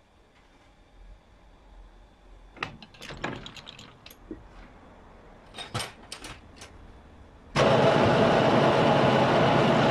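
A few light metal clicks and knocks. Then, about three-quarters of the way through, a metal lathe starts abruptly and runs with a loud, steady mechanical noise.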